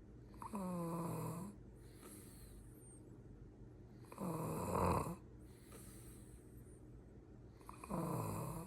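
Snoring: three snores, each about a second long and coming a little under four seconds apart, with quiet breathing between them.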